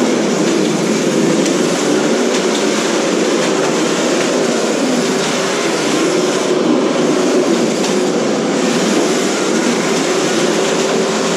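Several 1/10-scale radio-controlled cars running at once: a steady, dense whir of motors and drivetrains, with a few faint knocks.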